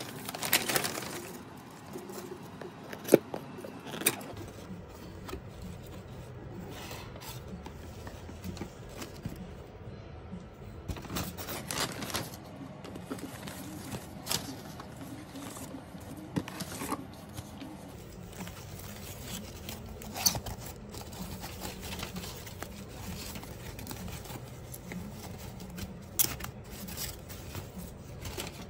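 Wrapping paper and tissue paper rustling and crinkling as a gift box is unwrapped by hand, with irregular crackles and a few louder sharp snaps.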